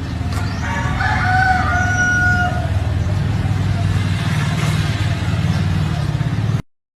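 A single long, held animal call, steady in pitch, over a continuous low rumble; the sound cuts off abruptly near the end.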